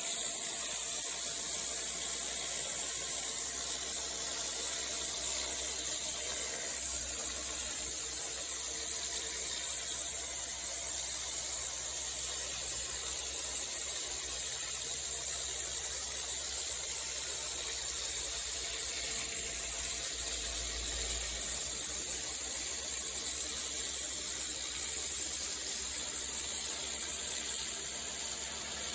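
Pressure washer spraying: a steady, high-pitched hiss of the water jet.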